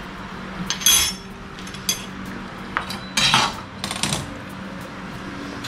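Metal kitchen utensils clinking and clattering in several short bursts as a wire whisk is picked out, over a steady low hum.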